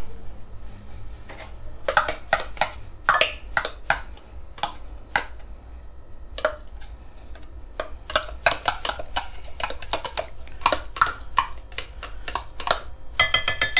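A metal spoon scraping and tapping inside a measuring cup to get out the last of the thick tomato ketchup: an irregular run of sharp clicks, ending in a short metallic clink and rattle near the end.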